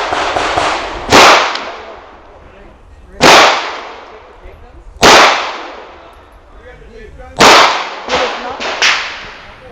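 Pistol shots from a Springfield Armory EMP compact 1911: four single shots about two seconds apart, each with a short echo. A few fainter cracks follow near the end.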